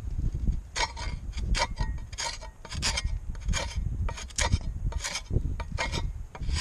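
A hand sharpener rasping along the steel edge of a Cold Steel Special Forces shovel in quick, regular strokes, starting about a second in, to put a working edge on the blade.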